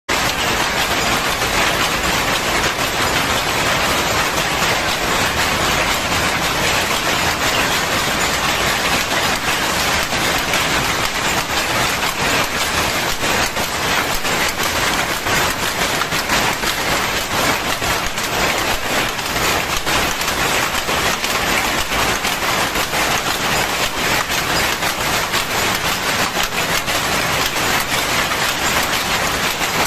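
Weaving looms making dhoti cloth: a loud, dense, steady clatter of many fast overlapping clicks, typical of machines running together in a weaving shed.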